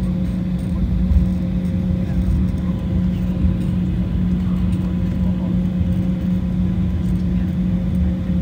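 Steady cabin noise of an Embraer 190 taxiing: its GE CF34 turbofan engines running at low power, a constant hum over a low rumble.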